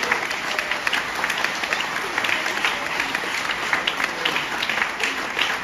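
Audience applauding: many people clapping together, steady and dense throughout.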